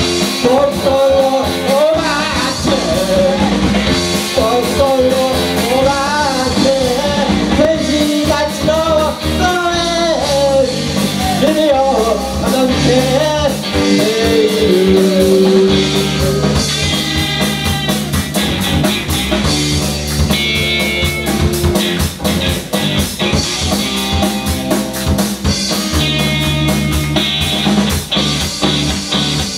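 Live rock band playing with drum kit, electric bass and guitars. A voice sings the melody over the band for about the first half, then the band carries on without singing.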